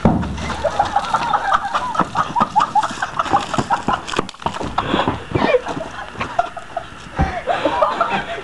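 Men laughing hard in a rapid, high-pitched cackling run of short bursts, several a second, with a few breaks.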